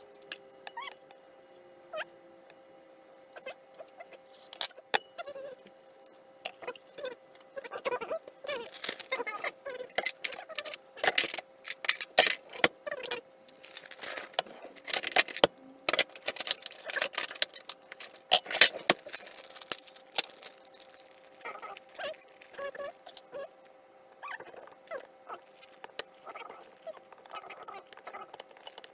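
A utensil clicking and scraping against a glass mixing bowl as egg is beaten, in irregular bursts of clinks, with crinkling of plastic and paper bags being handled and emptied into the bowl. A faint steady hum runs underneath.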